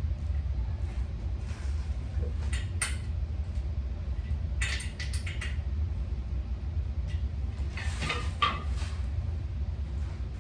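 Short clinks and knocks of table parts and screw hardware being handled while a table is put together by hand, coming in three brief clusters over a steady low hum.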